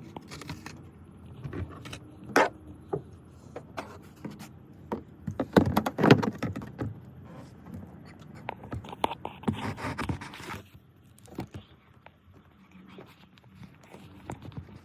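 Hands working on a car's tail-light assembly: irregular plastic clicks, knocks and scraping, loudest about six seconds in, with a stretch of rustling and rattling around ten seconds in.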